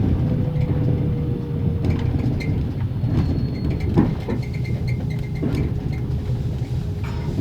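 Axle-driven generator of a passenger compartment coach whining, its pitch slowly falling as the train brakes, over a steady low rumble of the coach running at low speed, with scattered knocks and clicks of the carriage. Heard from inside the closed compartment.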